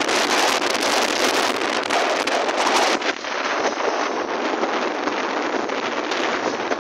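Wind rushing over a phone microphone on a moving motorbike, a steady loud hiss with no clear engine note. About three seconds in, the sound turns slightly duller.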